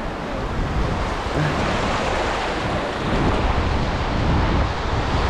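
Sea surf washing in over shallow water in choppy conditions as the tide comes in, with wind buffeting the microphone.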